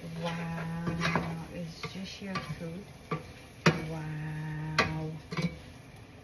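Wooden spatula stirring shrimp and onions in a sizzling frying pan, with sharp knocks of the spatula against the pan. Twice a steady low hum-like tone is held for over a second.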